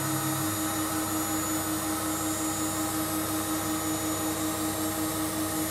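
Henry vacuum cleaner running as dust extraction alongside a desktop isel CNC router's spindle milling a wooden workpiece: a steady mechanical whine. A lower hum drops out about half a second in.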